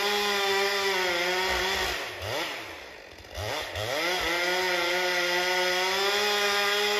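Two-stroke Stihl chainsaw running at full throttle, cutting into an oak trunk. About two seconds in the throttle is let off and the engine note falls away. It revs back up about a second and a half later and holds steady again.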